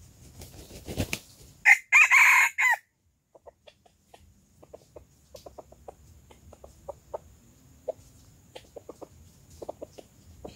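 A rooster flaps its wings, then gives one loud, short crow of about a second. It is followed by a long run of soft, short clucks.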